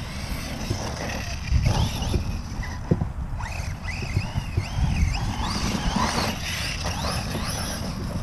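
Reely Raptor 6S RC truck's brushless electric motor whining, its pitch rising and falling again and again with the throttle, over a heavy low rumble of wind buffeting the microphone.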